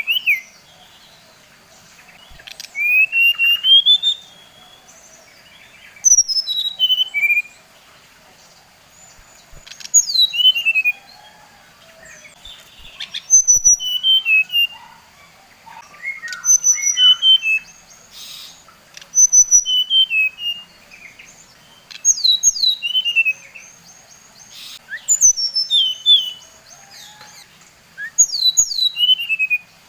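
A male brown-chested jungle flycatcher (sikatan rimba dada coklat, 'SRDC') singing. Short phrases of clear whistled notes, mostly sliding down in pitch, come about every three seconds, with a faint steady high hum behind them. This is lure song, used to rile other SRDCs into singing.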